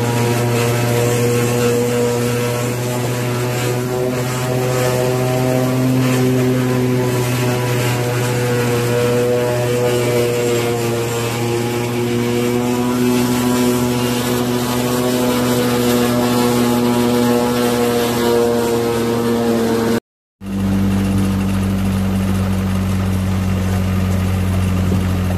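Engine on a horse-drawn forecart driving a New Holland 717 forage harvester, running steadily under load as it chops corn and blows the chopped silage into a wagon. About 20 seconds in, the sound breaks off briefly and resumes as a steadier, lower engine tone.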